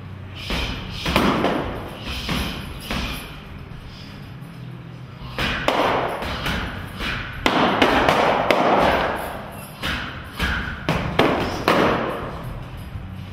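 Boxing gloves and padded striking sticks hitting each other in quick, irregular runs of thuds and smacks during pad-stick drills.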